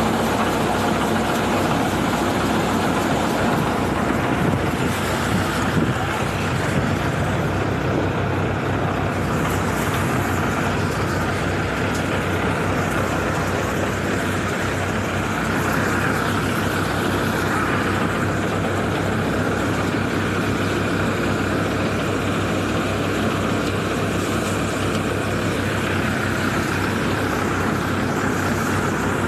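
Pearl millet threshing machine running steadily: a loud, even mechanical drone with a low hum, unbroken throughout.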